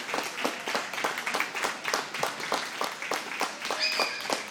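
Audience clapping, many separate sharp claps in an uneven patter, with a brief high-pitched tone near the end.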